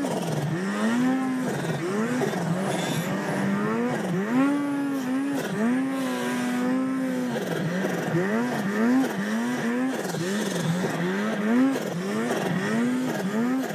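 Snowmobile's two-stroke engine revving up and down over and over, its pitch rising and falling about once a second as the throttle is worked through deep powder, with a steadier stretch about six seconds in. A steady rush of wind and snow runs underneath.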